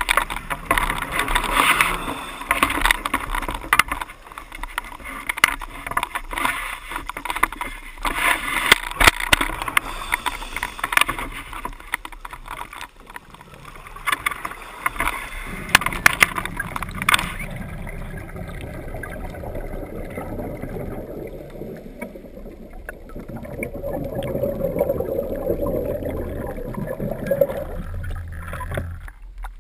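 Muffled underwater sound through a GoPro housing on a scuba dive, with crackly bursts of bubbling from divers' exhaled breath. From about halfway the crackle fades and a duller, lower rushing sound remains as the camera rises toward the surface.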